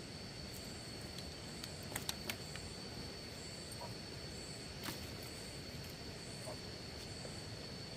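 Bamboo strips being handled and split with a machete: a few light clicks and knocks about two seconds in and one more near five seconds. Under them runs a steady outdoor background with a constant thin high whine.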